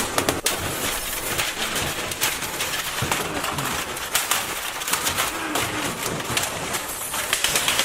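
Soda spraying from burst cans: a dense fizzing hiss full of small crackles and knocks.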